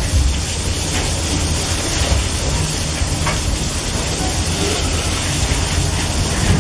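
Freight wagons loaded with eucalyptus logs rolling past, a steady low rumble of wheels on rail with a few faint clacks, over the hiss of heavy rain.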